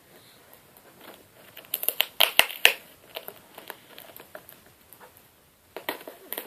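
Cardboard box and packing tape being picked and pulled at while trying to open it: scattered crinkles and crackles, with a cluster of sharp cracks about two seconds in and another burst near the end.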